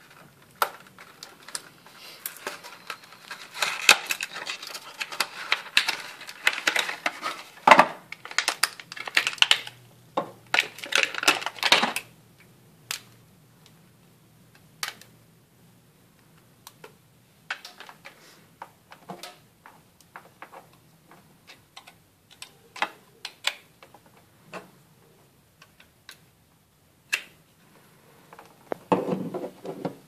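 Small plastic USB wall charger, its cable and its packaging being handled: clicks, taps and rustling. The rustling is dense for the first dozen seconds, then gives way to scattered single clicks, with another short rustle near the end.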